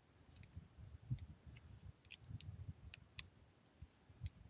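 Faint, scattered small clicks and ticks of a screwdriver and small metal parts being handled while a screw is backed out of a pistol's bracket, with low soft handling bumps.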